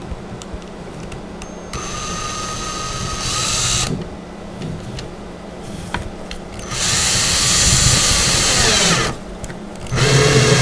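Cordless drill driving Phillips screws through a wooden panel into dowel supports, in two runs of about two seconds each. The motor's whine rises at the end of the first run and drops away at the end of the second as the screw seats. A short final burst comes near the end.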